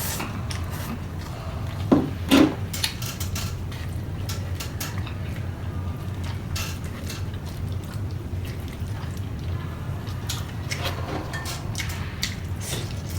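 Eating sounds: chewing, and utensils clicking against a bowl or plate, over a steady low hum. There are two louder sharp crunches or knocks about two seconds in.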